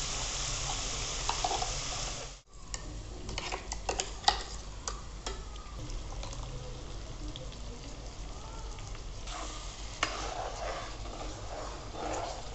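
Onion paste sizzling as it fries in hot oil in a metal kadai, stirred and scraped with a metal slotted spoon, with sharp clinks of the spoon against the pan.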